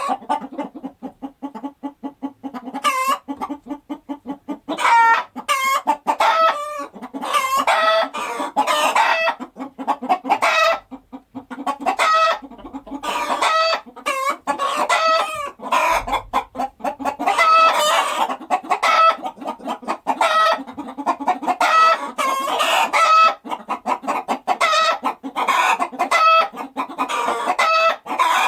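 A flock of chickens clucking continuously, with many louder, overlapping calls on top of a steady low clucking.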